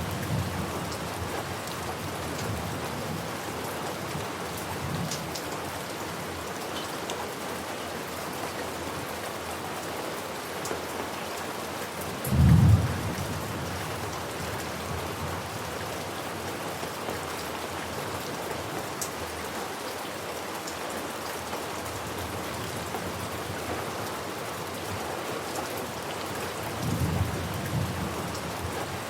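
Steady heavy rain, with a loud low clap of thunder about twelve seconds in and a fainter rumble of thunder near the end.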